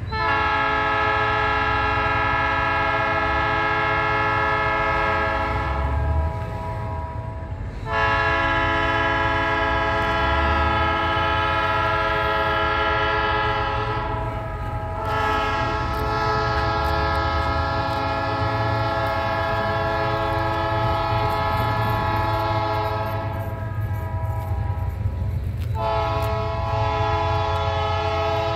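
Freight locomotive air horn sounding four long blasts of several seconds each, with a second or two between them; the last blast starts near the end and is still going. A steady low rumble from the train runs underneath.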